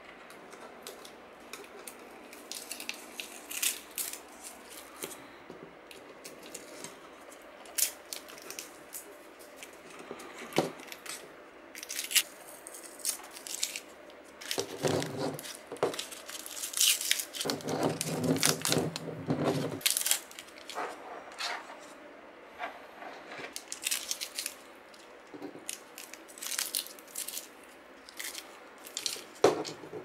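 Masking tape being peeled and aluminium foil crinkled as they are pulled off spray-painted PC fan frames: irregular sharp crackles and rustles, busiest and loudest a little past the middle.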